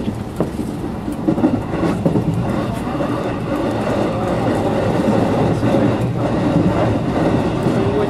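Electric commuter train running along the track, heard from inside the car: a steady rumble of wheels on rails with a few sharp clicks in the first two seconds, growing gradually louder.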